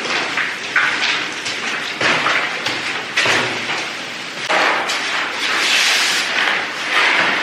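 Floor underlay being unrolled and laid over a tiled floor: a run of rustling bursts, each starting sharply and fading over a second or so.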